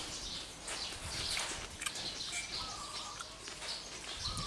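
Birds chirping faintly in the background, with a couple of short whistled notes and a few light clicks.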